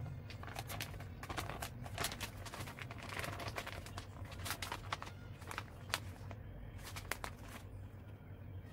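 Plastic bag of shredded cheese crinkling in quick, irregular crackles as it is squeezed and shaken out, over a low steady hum; the crinkling stops near the end.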